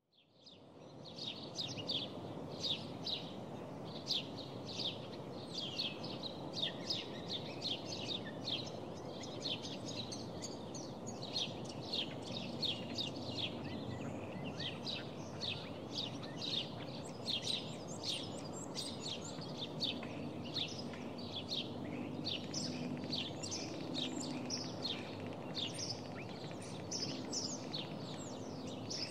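Dawn chorus of small birds: a dense, unbroken run of short high chirps over a steady low background rumble. The sound fades in over the first second.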